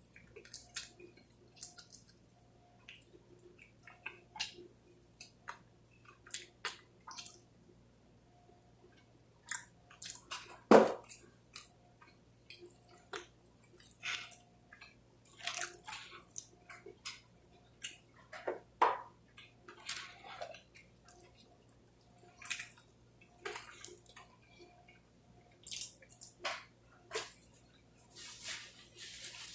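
Close-up eating sounds: irregular chewing, wet lip smacks and mouth clicks, with a louder smack about 11 seconds in.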